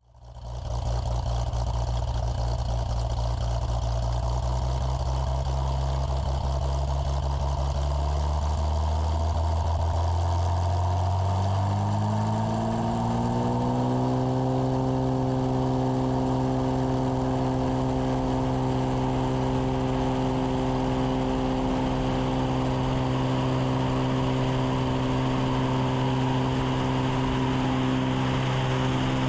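Cessna jump plane's piston engine and propeller running. It rises in pitch between about eight and fourteen seconds in as power comes up, then holds a steady drone.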